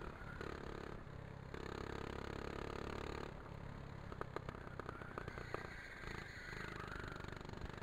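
Go-kart engine running, heard from a camera mounted on the kart, with a quick run of sharp clicks and rattles in the middle.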